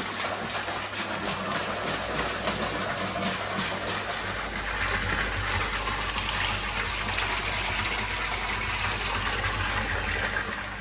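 Water gushing from a pipe outlet and splashing into a part-filled koi pond as it is refilled, a steady pouring noise. About four seconds in the sound turns fuller and deeper.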